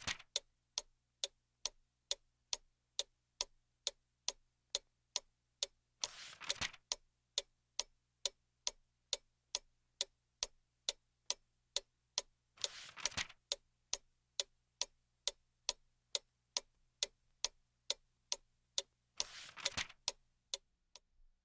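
Mechanical clock ticking steadily, about two sharp ticks a second. Three times, about every six and a half seconds, a short papery rustle of a book page being turned.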